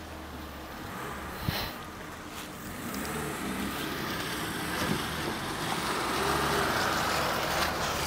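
Off-road vehicle's engine running as it drives slowly over a rough forest-track obstacle, getting louder as it comes closer, with a single knock about one and a half seconds in.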